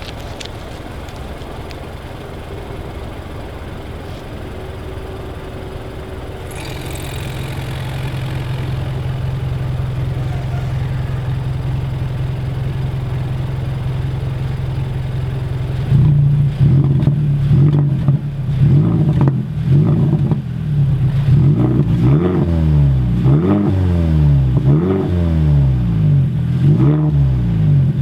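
A Mazda 6's 2.5-litre four-cylinder idling through an exhaust with its electronic cutout open, so the muffler is bypassed. The idle grows louder about seven seconds in. From about halfway it is revved over and over, the exhaust note rising and falling with each blip.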